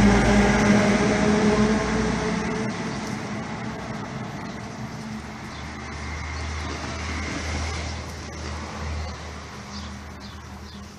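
Motor vehicle engine and road noise with a steady low hum, loud at first and then fading slowly.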